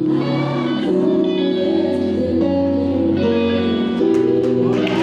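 Background music led by guitar, with sustained chords that change every second or so.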